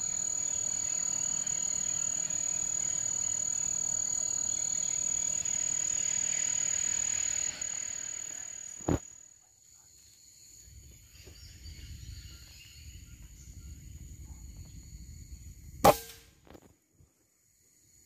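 A steady high-pitched insect call that stops about eight seconds in, then a short click. About two seconds before the end, a single sharp air rifle shot, the one that hits the imperial pigeon.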